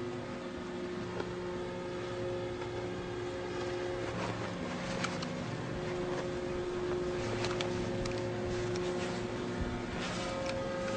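A motor running steadily as a low drone, with scattered sharp clicks and clacks over it.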